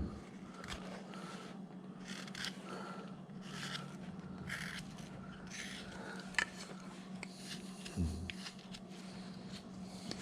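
A hand carving tool paring wood in short scraping cuts, a stroke every half second to a second, with one sharper click about six seconds in, over a steady low hum.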